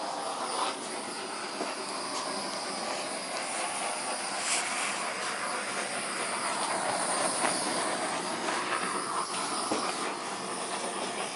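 Handheld gas torch flame hissing steadily as it is swept over fresh epoxy resin to pop air bubbles.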